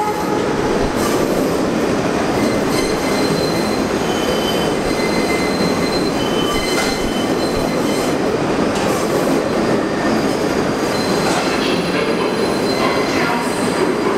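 Bombardier R62A subway train pulling into the station, its wheels running on the rails in a steady rumble, with short thin squeals from the wheels now and then.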